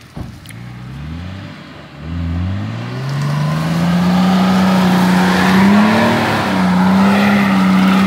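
Off-road 4x4 SUV engine revving hard while driving through deep mud: the revs climb twice in the first couple of seconds, then are held high and waver up and down, with the rush of wheels churning mud underneath.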